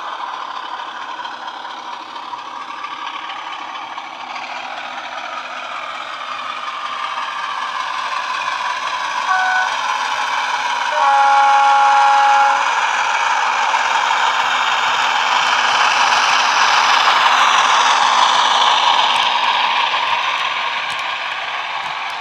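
Heljan OO gauge Class 33 model's DCC sound decoder playing the Sulzer diesel engine through the model's small speaker, growing louder as the locomotive approaches, with the rattle of the model's wheels and wagons on the track. Its horn sounds about halfway through, first with a short note and then with a longer, louder one.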